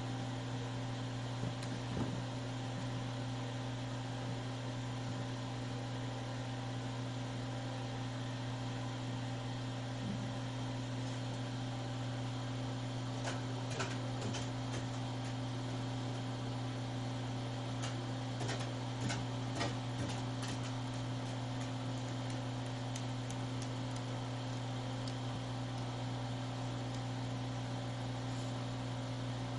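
Steady low hum, with a few faint clicks and taps scattered through the middle stretch.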